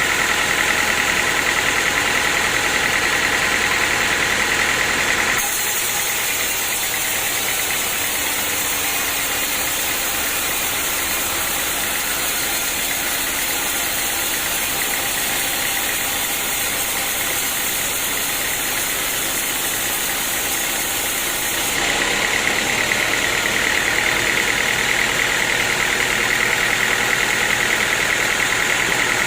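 Sawmill machinery running steadily with an engine hum. The sound shifts abruptly about five seconds in and shifts back about seven seconds before the end.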